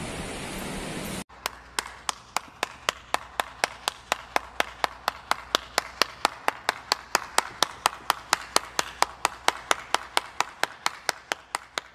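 One person clapping steadily, a long even run of single sharp claps at about three to four a second that quickens slightly.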